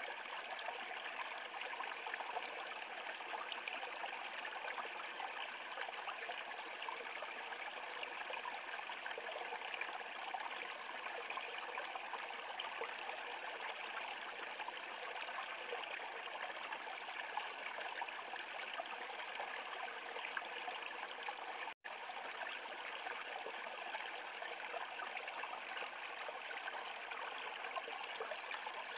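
Small shallow stream splashing and babbling steadily over a low rocky step. The sound cuts out for an instant once, about three-quarters of the way through.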